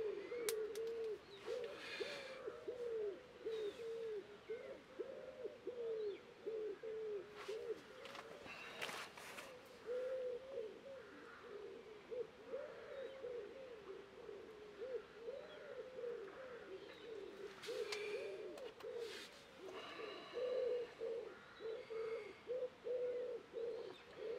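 Pigeons cooing without a break, a low wavering coo repeated over and over, with occasional brief chirps from other birds.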